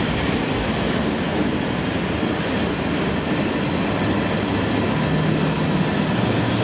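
Freight train rolling across a railway bridge: a steady noise of wagons on the rails.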